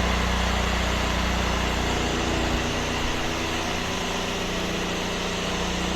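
Two 8 GPM pressure washers running steadily, with the hiss of the wand spraying soft-wash mix through the injector.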